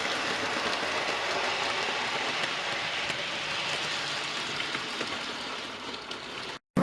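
Model railway train running along the track, a steady whirr and rattle of motor and wheels heard close up from a camera wagon in the train. It cuts off suddenly near the end.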